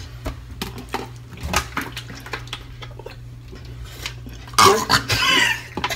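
Scattered light clicks and taps of small hard objects being handled close to the microphone. About four and a half seconds in comes a short loud vocal outburst.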